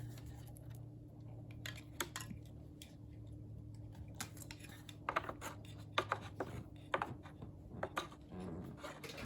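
Scattered clicks and light knocks of plastic parts being handled, coming more often after about four seconds, over a low steady hum.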